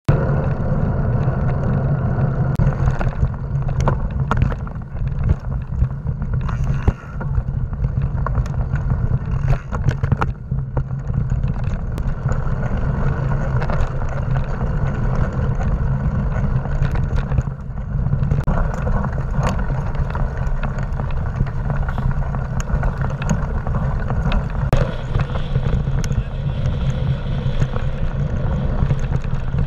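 Mountain bike riding heard through a mounted action camera: steady wind buffeting and tyre rumble, with frequent sharp rattles and clicks from the bike over bumps.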